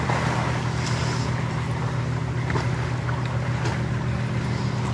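A steady low engine-like hum under wind noise on the microphone, with a few faint clicks.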